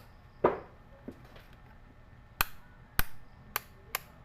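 An analog multimeter's rotary range selector clicking through its positions as it is turned to the x1 resistance range: a dull knock of handling, then four sharp, separate clicks spaced about half a second apart.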